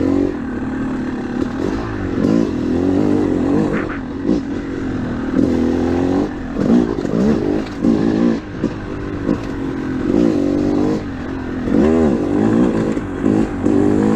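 2013 Yamaha YZ250 two-stroke single-cylinder dirt bike engine lugging up a trail in third gear, the revs rising and falling over and over as the throttle is worked.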